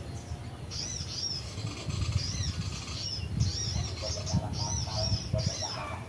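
Bird-call lure recording playing a busy mix of calls: short, arched, high chirps repeated over and over, with a lower run of notes joining about four seconds in, over an irregular low rumble.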